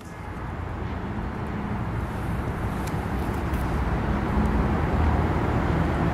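Outdoor street ambience: a low, steady rumble of road traffic that slowly grows louder.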